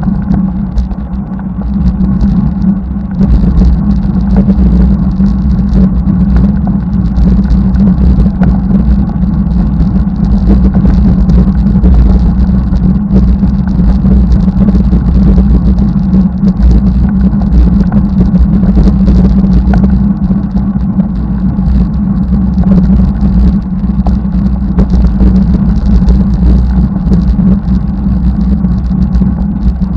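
Steady, loud, low rumble of riding noise from a camera mounted on a road bicycle: wind buffeting the microphone together with tyre and road noise.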